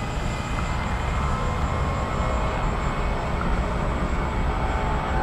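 Electric ducted fans of a radio-controlled Airbus A380 model running steadily in flight, a faint even whine over a heavy rumble of wind on the microphone.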